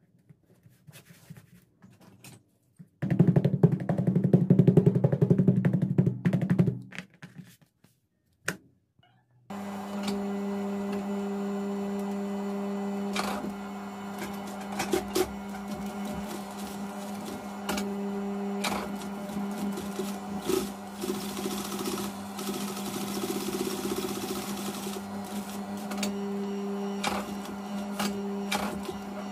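Juki industrial sewing machine: a loud run of rapid stitching a few seconds in, then its motor humming steadily with short runs of stitching and scattered clicks as the strap is fed under the needle.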